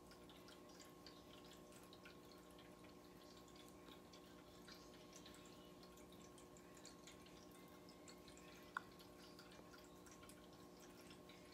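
Near silence: room tone with a faint steady hum and scattered tiny ticks, and one brief click about nine seconds in.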